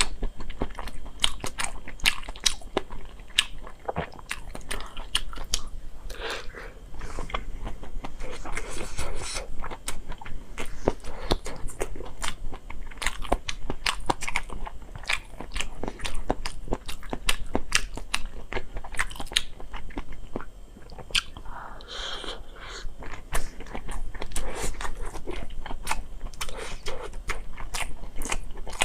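A person biting and chewing pan-fried fertilized chicken eggs (balut), with many irregular, crisp crunches and mouth clicks.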